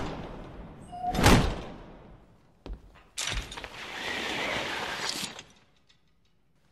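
Heavy window shutters slamming shut in a large stone hall: two loud bangs with long echoing tails, the second about a second in. A short knock follows, then a steady rattling rush of about two seconds.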